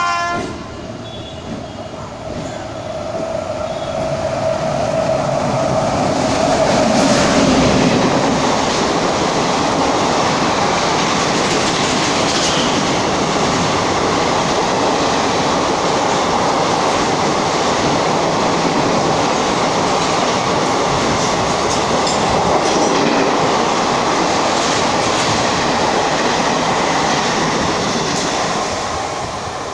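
Express train hauled by a WAP-7 electric locomotive passing: a brief horn blast at the start, then a steady whine that is overtaken as the noise builds. From then on the coaches' wheels run past on the rails with a steady rumble and clatter.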